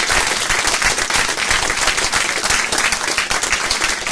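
Roomful of people applauding steadily, a dense continuous clapping.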